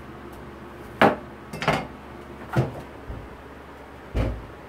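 Chinese cleaver knocking against a cutting board while halving a bottle gourd: four sharp knocks spaced roughly a second apart, the first and loudest about a second in.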